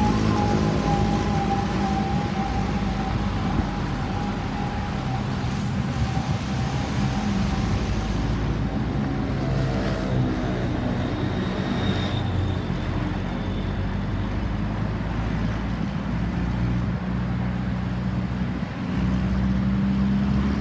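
An ambulance siren's steady tones slide gently down in pitch and fade out within the first few seconds as the vehicle moves away. Road traffic with the hum of vehicle engines fills the rest.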